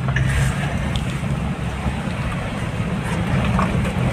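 A car running, with a steady low rumble of engine and road noise.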